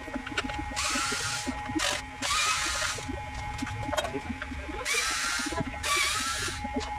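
Small electric screwdriver backing out screws in four short whirring bursts, in two pairs, each with a slight rising whine as the motor spins up.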